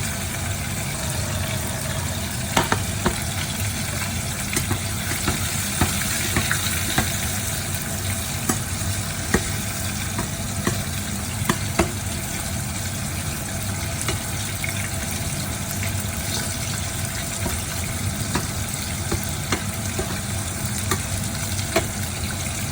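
Chopped capsicum sizzling steadily in hot oil in a pan as it is stirred, with scattered scrapes and taps of the spatula against the pan.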